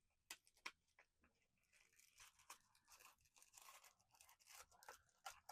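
Faint tearing and crackling of a small cardboard blind box being ripped open by hand, a run of irregular snaps and crinkles.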